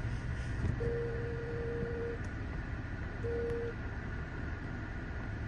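Twin-engine jetliner passing low on approach, its engines a steady low rumble with a faint steady whine above. A pure electronic beep tone sounds twice, once for over a second starting about a second in, and briefly past three seconds.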